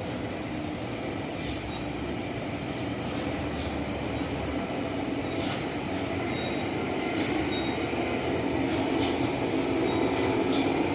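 Dump truck engine running and growing slowly louder as the truck approaches, with short high hisses every second or so.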